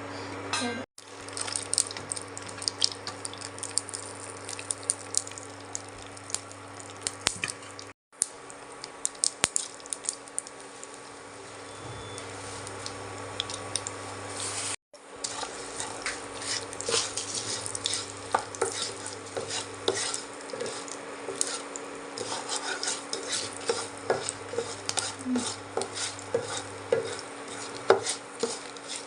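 Spoon stirring and scraping food in a metal cooking pan, with frequent sharp clicks of the utensil against the pan over a low sizzle of frying. The sound drops out briefly three times.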